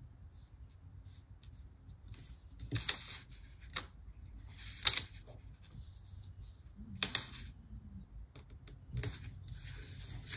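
Sticker sheet and planner paper being handled: faint small ticks and four louder short crackles about two seconds apart.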